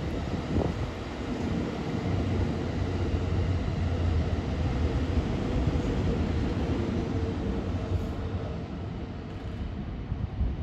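185 series electric train running past, a steady rumble of wheels on rail with a held hum, thinning out near the end.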